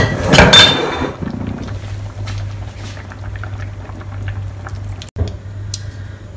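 Coconut milk poured from a glass bowl into a pan of simmering fish curry, a splashing pour in the first second, then the curry bubbling with light crackles over a steady low hum.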